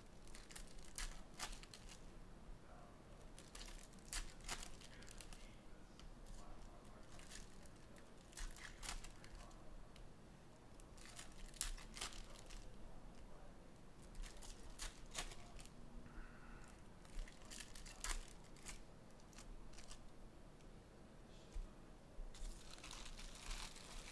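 Trading-card pack wrappers being torn open and handled: scattered, irregular sharp crinkles and rips of the wrapper material, fairly quiet.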